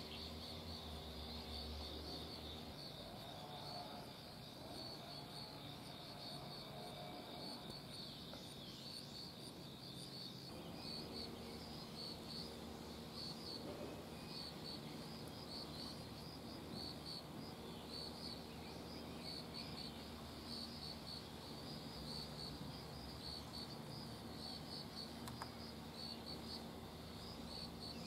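Insects chirping in grass: a faint, steady run of quick, high, pulsed chirps that keeps repeating.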